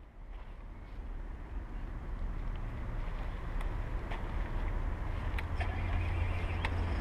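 Large self-built 1:8 hydraulic RC John Deere 9560R tractor model running as its dozer blade pushes into a pile of sand: a steady low mechanical hum that grows stronger about five seconds in, with a few sharp clicks.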